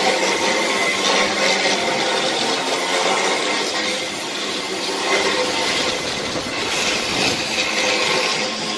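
Steady mechanical clatter and rumble of machinery and tools at work in a farm-machinery repair workshop.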